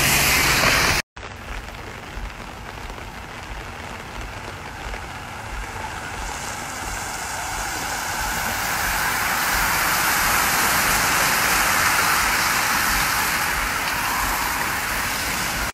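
Rain on a wet road, with a hiss of bicycle tyres that swells as a large group of racing cyclists rides past on the wet tarmac. In the first second a car drives by on the wet road before the sound cuts out briefly.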